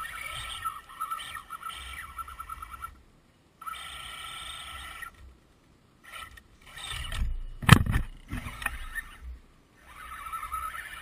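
Electric motor and gear whine of an Axial Wraith RC rock crawler, starting and stopping with the throttle as it climbs, cutting out several times. A loud thump with a low rumble comes about three-quarters of the way through.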